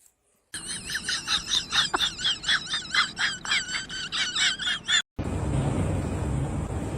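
An animal making a rapid series of high-pitched, squeaky calls, about three a second, each wavering in pitch. They cut off suddenly after about five seconds, and a steady low hum follows.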